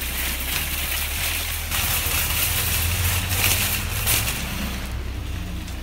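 Car being driven: a steady low engine and road hum under a hiss of tyre and wind noise, which swells in the middle and eases near the end.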